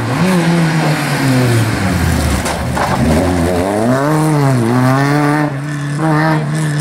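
Rally car engine at high revs, passing close and pulling away. The revs drop and climb again twice, a couple of seconds in and again about four and a half seconds in.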